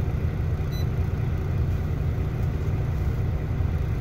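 Parked semi-truck's diesel engine idling, a steady low rumble heard from inside the cab.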